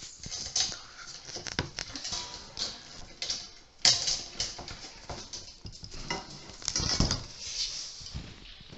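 Metal antenna parts being handled during assembly: irregular clinks, clatter and knocks with rustling in between, the loudest knocks about four and seven seconds in.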